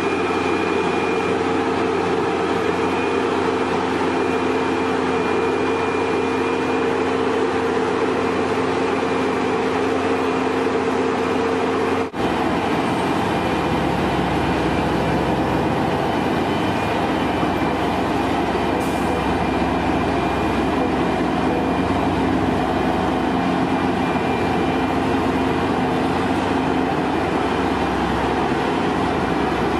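Heavy road-construction machinery running steadily, a continuous mechanical din with a held whine; about 12 seconds in it cuts abruptly to another machine with a deeper rumble.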